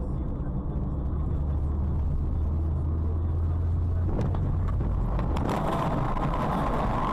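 Car driving on a multi-lane highway, recorded from inside the cabin by a dashcam: a steady low engine and road hum. About four and five seconds in come a couple of short knocks, after which a rushing noise takes over.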